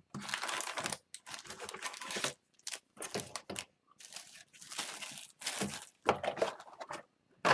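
Plastic shrink-wrap being torn and crumpled off a sealed box of hockey cards: several separate bursts of crinkling and ripping.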